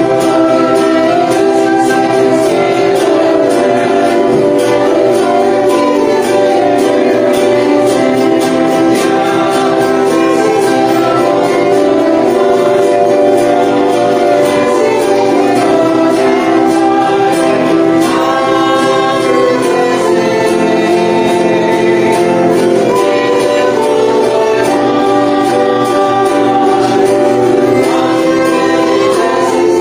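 A hymn sung by a group of voices with instrumental accompaniment, in steady sustained notes without a break: the church's offering song.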